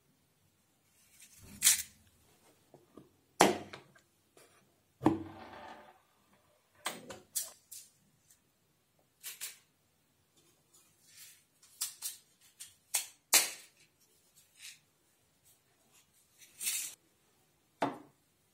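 Small metal clicks and knocks from handling a tin of gramophone needles and fitting a needle to a wind-up gramophone. A few sharper knocks come in the first five seconds, one followed by a short scrape, then lighter clicks with quiet gaps, and two more knocks near the end.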